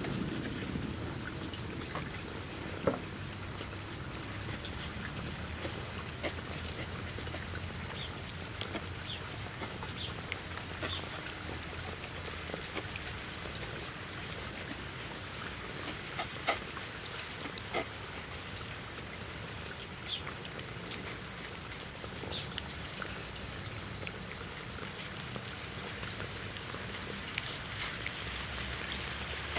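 Cats eating boiled chicken: irregular small chewing and licking clicks over a steady background hiss.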